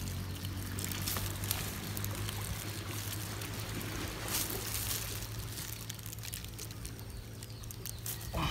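Water running and trickling steadily, with a few faint clicks.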